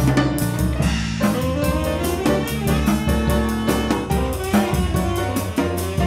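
Live jazz-funk band: a saxophone playing the lead over a drum kit keeping a steady beat, with bass and piano underneath.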